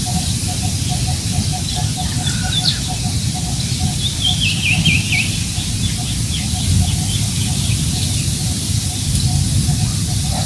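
Wind blowing across the microphone with a steady low rumble, while birds chirp over it, including a quick falling run of calls about four to five seconds in. A short note repeats steadily, about four times a second, beneath the chirping.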